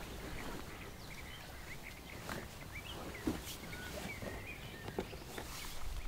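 Small birds chirping in short calls, with a few sharp clicks and rustles from camera bags and gear being handled.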